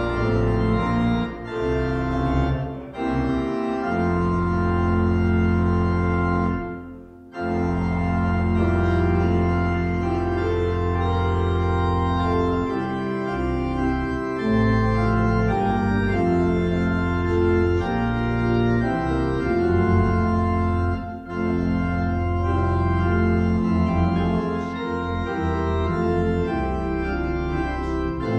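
Organ playing a hymn in held chords, breaking off briefly about seven seconds in before the next verse begins.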